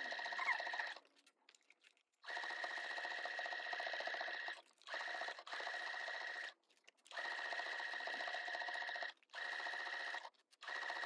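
Electric sewing machine stitching a seam through foundation paper and layered cotton fabric. It runs with a steady high whine in short spells and stops abruptly about five times between them.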